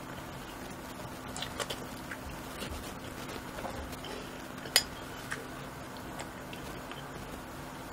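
Metal spoon clinking and scraping against a glass bowl of food: scattered light clicks, with one sharp clink a little under five seconds in, over a faint steady hum.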